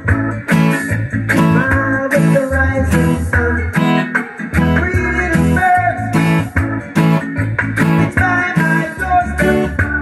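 Acoustic guitar strummed in a bouncy reggae rhythm on an A chord, changing to D near the end, over music with a deep bass line.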